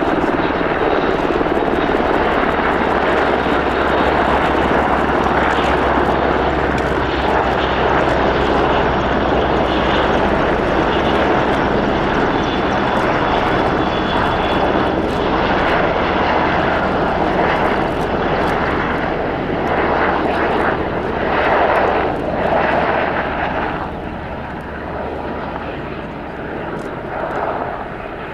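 Military turbine helicopter flying in a display: a steady loud rush of engine and rotor noise that fades over the last few seconds as it moves away.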